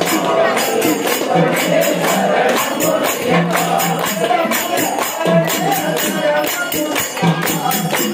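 A group of devotees singing an Ayyappa bhajan together, with hand claps and a jingling percussion beat keeping steady time.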